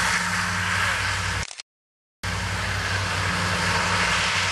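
Norfolk Southern diesel locomotive hauling a freight train past at close range: a steady diesel engine drone under loud wheel and rail noise. The sound cuts out for about half a second a little after a second in, then resumes the same.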